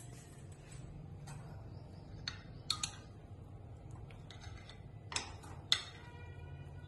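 A spoon clinking against a bowl while chopped salad ingredients are mixed: about five sharp knocks in two clusters, the last one ringing briefly.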